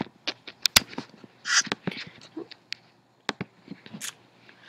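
Irregular sharp clicks of a computer mouse, with a short rustle about a second and a half in.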